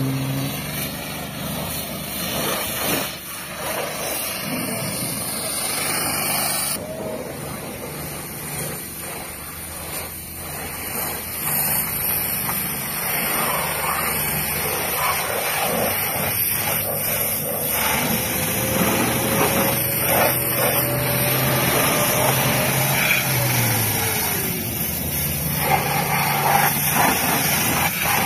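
Pressure washer running: a steady motor hum under the hiss of the high-pressure water jet spraying onto a car.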